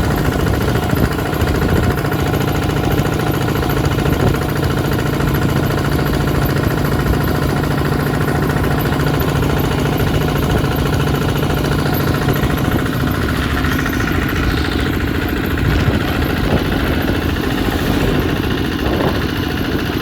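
A vehicle engine running steadily, its note shifting about twelve seconds in.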